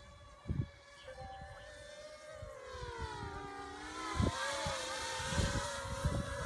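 Quadcopter's electric rotors buzzing in flight, several pitched tones that dip lower about three seconds in and rise again, growing louder as it comes closer. Low thumps of wind on the microphone.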